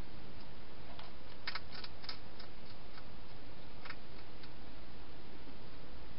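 A hedgehog eating inside a plastic feeding box: a short run of sharp clicks and crunches a little after a second in and another near four seconds, over a steady hiss.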